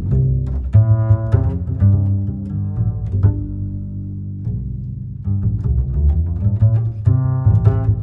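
Background music: sustained low bass notes under a run of sharply struck, pitched notes.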